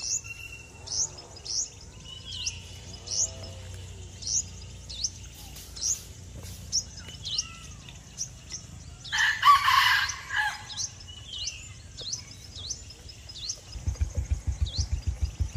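Small birds chirping over and over, short sharp high notes that sweep downward every second or so. A rooster crows once, loudly, about nine seconds in. Near the end a low, rapid throbbing starts up.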